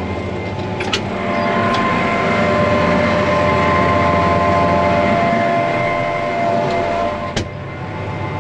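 Big Bud tractor's diesel engine running under load while pulling a seeding toolbar, with a steady whine over it. A cab door latch clicks open about a second in, letting the engine noise in louder, and the door knocks shut about seven seconds in, muffling it again.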